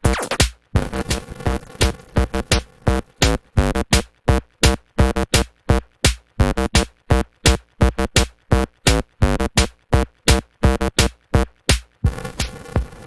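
Electronic music built on a drum-machine beat of rapid, choppy hits, turning denser near the end.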